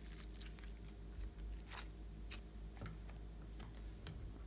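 Glossy slime being stretched and pulled by hand, giving scattered small sticky clicks and pops.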